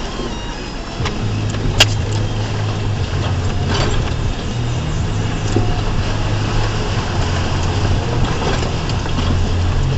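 2004 Ford Ranger's 4.0-litre V6 running under way, a steady low drone that picks up about a second in, with a sharp knock about two seconds in and a softer one a couple of seconds later.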